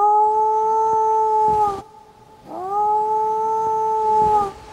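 New Guinea singing dog howling twice: two long howls of about two seconds each, separated by a short pause. Each slides up in pitch at the start, holds a clear, steady pitch, and dips slightly at the end.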